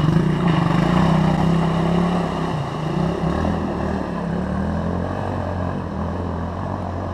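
Single-cylinder Suzuki DR dual-sport motorcycle engine running, its pitch easing down over the first three seconds and settling to a lower, steady note.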